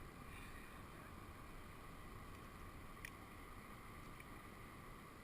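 Near silence: a faint, steady hiss of background noise, with one small click about three seconds in.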